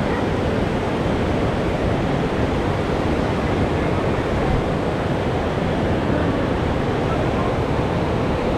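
Steady, loud rushing roar of the Niagara River's whitewater rapids, unbroken throughout.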